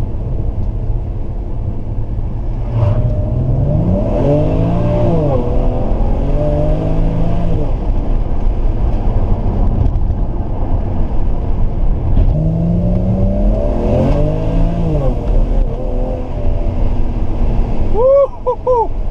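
BMW 335i's turbocharged 3.0-litre straight-six and AC Schnitzer rear-silencer exhaust, heard from inside the cabin under hard acceleration over a steady low drone. Twice, about three seconds in and again about twelve seconds in, the revs climb and then drop back.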